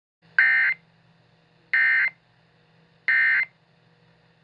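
Emergency Alert System SAME End of Message (EOM) header: three identical short bursts of digital data tone, each about a third of a second long and about 1.3 s apart, marking the close of the alert broadcast.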